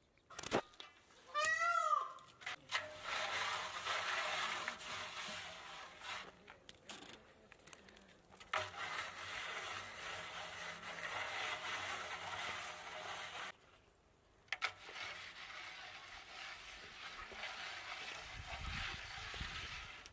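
Shovel scrapes in dry soil at the start, then a steady rubbing and scraping of hands smoothing wet mud over the lid of a large metal cooking pot, sealing it. A short animal call sounds about a second and a half in.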